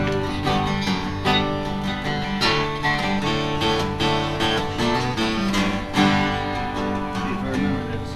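Two acoustic guitars played live together, strumming chords in a country song with no singing.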